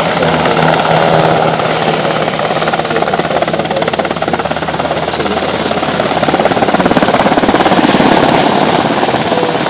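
MH-60R Seahawk helicopter with its rotor chopping in a fast, even beat. It grows louder about six seconds in and eases off near the end.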